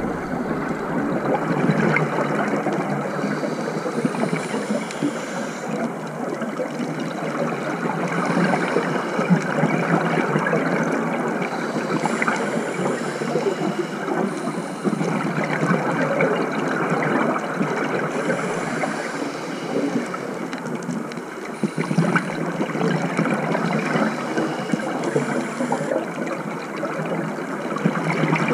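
Scuba divers' exhaled regulator bubbles gurgling and rumbling continuously, heard underwater. A short, faint high hiss recurs every few seconds.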